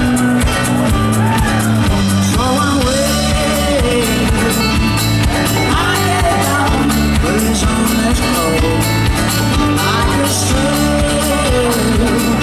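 Live band music through a festival PA: a male singer with acoustic guitar over sustained low notes and a steady beat, heard from the crowd.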